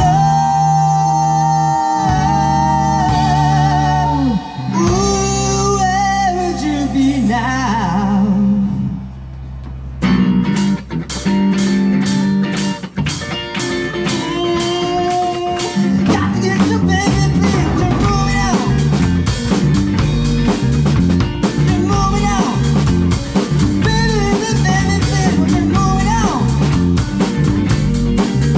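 A band playing a blues-rock song with singing, guitar and drum kit. The drums drop out at first under held sung notes and long chords, then come back about ten seconds in and the full band groove runs on.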